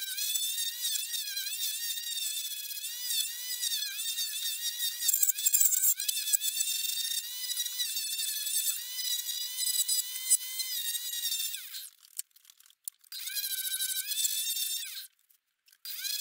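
High-pitched whine of a washing machine's commutator motor driving a homemade wood lathe, its pitch wavering as sandpaper is pressed against the spinning wooden spindle. The sound cuts out briefly twice near the end.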